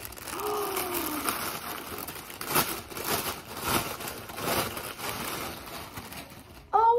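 Clear plastic clothing bag crinkling and rustling as it is opened and handled, in a run of irregular crinkles. A short hum of a voice comes about half a second in, and a child starts singing just before the end.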